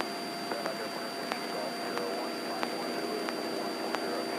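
Steady drone of a light airplane's engine heard in the cockpit, with faint, evenly spaced ticks about every two-thirds of a second.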